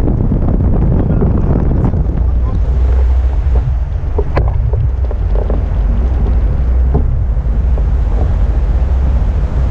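Steady rush of wind buffeting the microphone of a camera mounted on a hang glider in flight, a loud low rumble of airflow.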